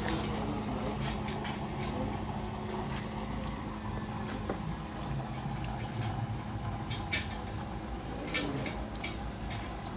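Water pouring from a plastic jerrycan into a wok of vegetables, a steady splashing pour, with a couple of sharp clicks about seven and eight seconds in.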